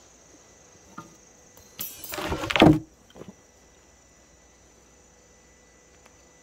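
A steady, faint, high insect chirr, with a brief scraping rustle about two seconds in that lasts under a second.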